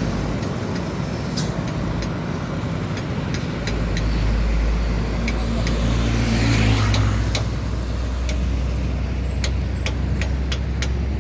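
Roadside traffic with a heavy engine drone, a louder vehicle passing about six seconds in, and scattered sharp metal taps.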